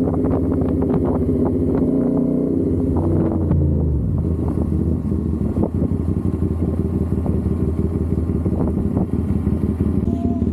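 CFMOTO 450SR's parallel-twin engine running at speed. About three seconds in, its pitch falls as the bike slows, and it settles into a low, steady idle.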